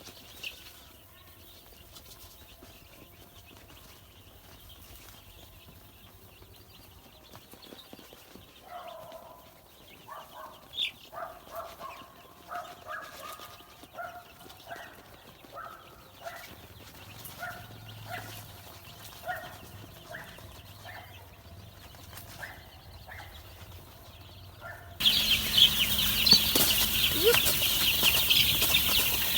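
Chickens calling: after a quiet start, short repeated clucks run for about fifteen seconds. Near the end it cuts to a much louder, dense stretch of high chick sounds from a flock of young chicks.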